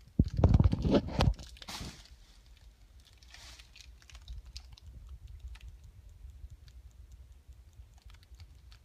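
Blind-bag toy packaging being handled and opened by hand. Loud bumps and crackles come in the first second or so, then light scattered crinkling and clicking.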